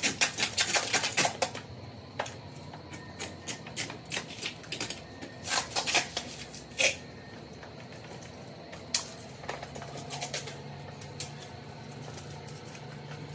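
Irregular sharp clicks and taps, bunched in quick runs near the start and again around six seconds in, with a faint steady low hum coming in about two thirds of the way through.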